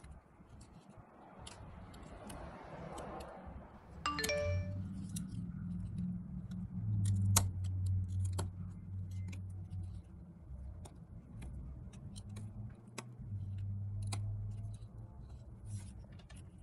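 Small metal parts clicking and being handled, with one sharp knock about four seconds in that rings out briefly like struck sheet metal, over an on-and-off low hum.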